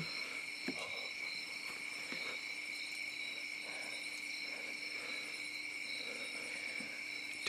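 Chorus of crickets and other insects: steady high trills in several pitches, with a faster pulsing one above them.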